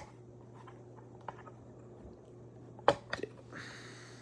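Plastic clicks and small knocks of a smoke alarm's battery drawer being opened and handled: a sharp click at the start, scattered light ticks, then a cluster of louder clicks about three seconds in, followed by a brief rustle.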